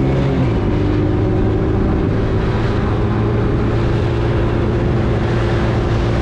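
Honda TRX90 ATV's small four-stroke single-cylinder engine running while riding, its pitch easing down about half a second in and then holding steady.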